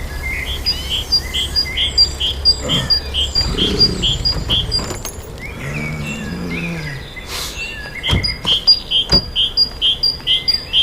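Birds chirping in an even repeating pattern, about two to three short calls a second, which fade out midway and return near the end. A low steady hum stops about three seconds in, and two sharp clicks come near the end.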